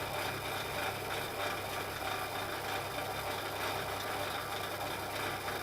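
Milling machine running steadily, its spindle drive giving a constant low hum with a mechanical whir above it.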